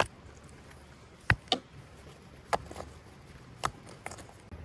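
Stones knocking against one another as they are set in place by hand: about five short, sharp clacks spread a second or so apart, the loudest a little over a second in.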